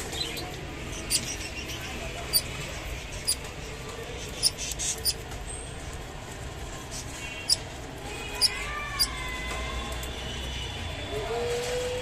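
Budgerigars pecking at water spinach leaves and seed on a feeding tray: sharp little beak clicks at irregular moments, about one a second. A few soft chirps come near the end.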